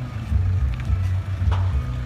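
Music with a heavy, pulsing bass, mixed with the sound of traffic as a pickup truck drives past.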